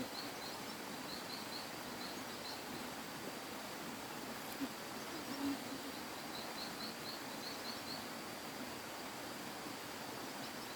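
Steady outdoor background noise with runs of rapid, high-pitched chirps from a small animal, coming in short series at the start, in the middle and near the end.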